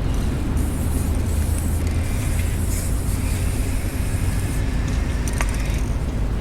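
Aerosol chain wax hissing out of a spray can onto a motorcycle chain, starting about half a second in and stopping after about four seconds, followed by a single click. A steady low engine rumble from nearby machinery runs underneath and is the loudest sound.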